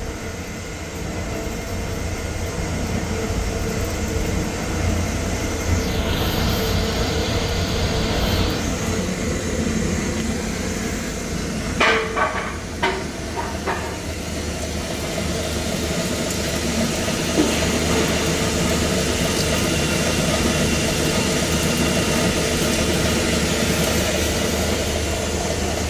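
Hollymatic 180-A mixer grinder running in mix mode: its electric motor drives the mixing paddles in the stainless steel hopper with a steady hum, the grinding head not yet engaged by the clutch. A few short knocks come near the middle.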